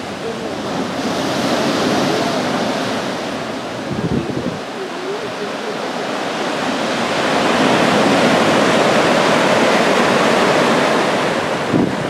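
Ocean surf breaking and washing up a small beach in a rocky cove, a steady rush of water that swells louder about seven seconds in. A couple of brief low thumps near the middle and the end.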